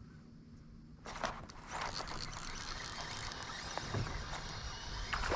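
Water splashing and sloshing at a fishing kayak, with small knocks and clicks, starting about a second in after a quieter stretch with a low steady hum.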